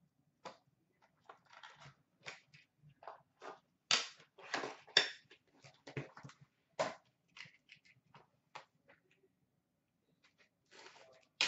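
Cardboard trading-card boxes and pack wrappers being handled and tossed aside: a run of irregular light taps, clicks and rustles, loudest in the middle, then a longer rustle near the end as the next box is picked up.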